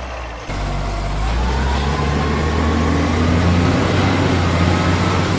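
Truck engine sound effect running steadily under the picture of a toy dump truck, a low hum with a faint whine that slowly rises in pitch like a vehicle gaining speed; it steps up in loudness about half a second in.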